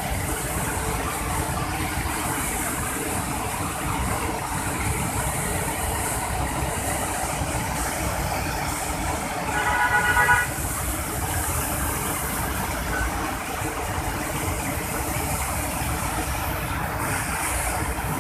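Fast white-water rapids of a mountain river rushing loudly and steadily. About ten seconds in, a horn sounds for about a second over the water.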